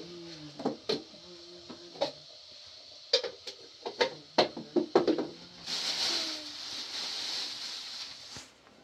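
A series of sharp knocks and clatters, like objects being handled and set down, then a steady hiss for about three seconds.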